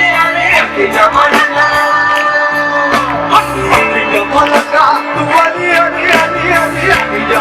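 Live band music: held melodic lines over a bass line and a steady drum beat, with no clear lead vocal.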